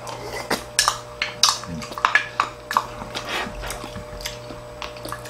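Spoon and chopsticks clinking against ceramic bowls during eating: a quick run of light clicks in the first three seconds, then a few more, over a steady low hum.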